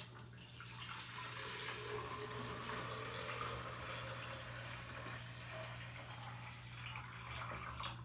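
Water poured in a steady stream from a plastic pitcher into an espresso machine's plastic water reservoir as it fills.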